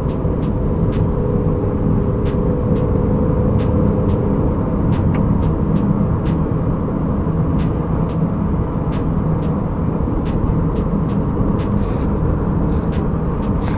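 Nissan Qashqai with a JF015 CVT being driven at road speed: a steady hum of engine, tyres and transmission with no extraneous whine, a sign that the transmission is running normally.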